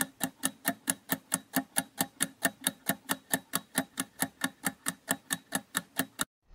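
Clock-style ticking sound effect for a quiz countdown timer, even ticks about four to five a second, stopping just before the end, where a deeper whoosh begins.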